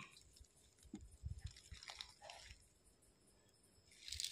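Near silence, with a few faint soft ticks and rustles.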